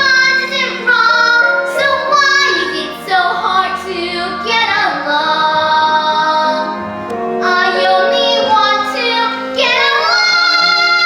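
A child singing a slow musical-theatre ballad over recorded backing music, moving into a long held note near the end.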